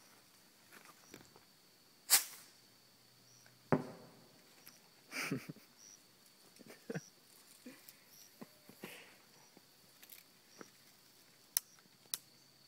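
Fireworks going off in water: a sharp loud pop about two seconds in, then a scatter of bangs, hisses and crackling pops, with distant coyotes yipping and howling.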